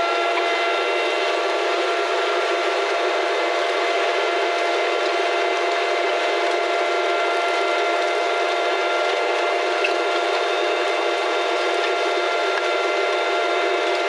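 A steady machine whine over an even hiss that holds unchanged throughout, with the bass cut away.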